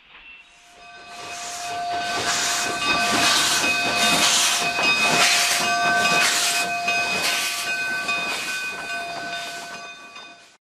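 Steam locomotive hissing in rhythmic puffs about once a second, with several steady whistle-like tones held over the hiss. It fades in, swells and fades away.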